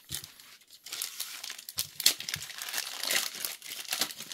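Crinkling and rustling of a foil trading-card booster-pack wrapper being handled and opened, dense and crackly from about a second in, with a few soft thumps.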